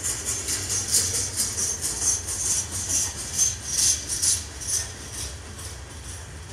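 Freight cars of a passing CN manifest train rolling by. The wheels give a quick, irregular run of high-pitched metallic clicks and short squeals on the rails over a steady low rumble, and the squeals die down about five seconds in.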